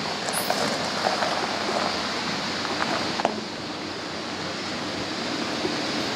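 Toyota HiAce camper van driving slowly toward the microphone over a gravel track, its tyres crunching on loose stones against a steady rushing noise. A low engine hum comes in about halfway through and grows slightly louder as the van draws closer.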